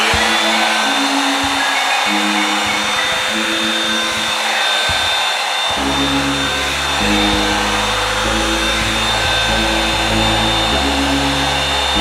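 Revlon One Step hair dryer brush running steadily: a rush of hot air with a steady motor whine, as it is drawn through the hair. Background music plays under it, with a bass line coming in about six seconds in.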